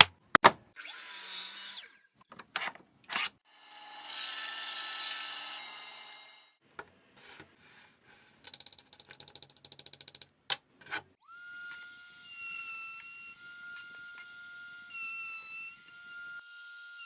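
Small power tools working wood: a few clicks and short bursts, a whirr of about two seconds, then a quick run of ticks. From about two-thirds of the way in, a small high-pitched motor whines steadily until the end.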